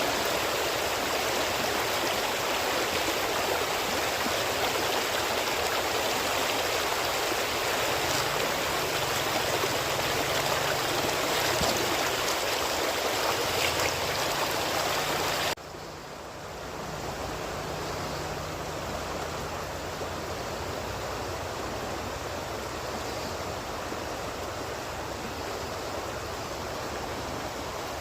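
Natural flowing water rushing steadily. About halfway through it cuts suddenly to a quieter, more muffled flow.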